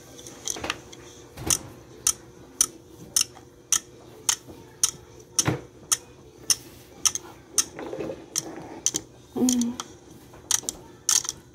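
Toy alarm clock ticking steadily, a little under two ticks a second.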